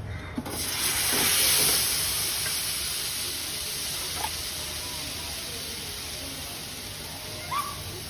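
Thin rava dosa batter sizzling and hissing as it is splashed onto a hot tawa. The hiss starts sharply about half a second in, is loudest a second later, then slowly dies down as the lacy dosa sets, with a couple of light clicks along the way.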